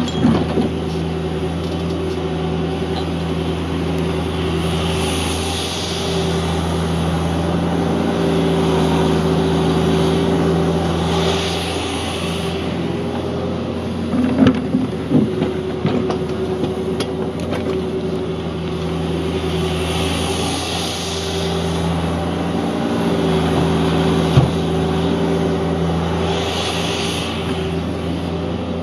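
Cat 305.5E2 mini excavator's diesel engine running steadily under digging load. A higher hydraulic whine swells four times, and there are a few sharp knocks and scrapes of the steel bucket in the gravel about halfway through and again later.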